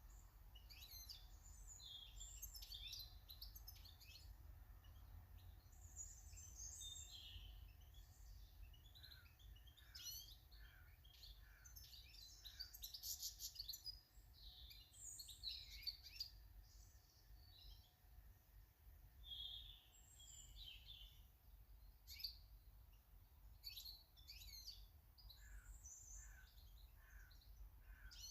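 Faint small garden birds chirping and twittering in quick, overlapping calls, twice with a short run of four lower, evenly spaced notes, over a steady low rumble.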